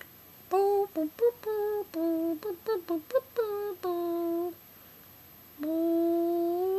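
A voice humming a string of short notes at shifting pitch, then one long held note that rises slightly at its end.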